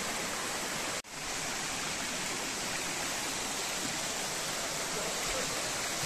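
Steady rushing of a waterfall, its late-summer flow light. There is a brief break about a second in.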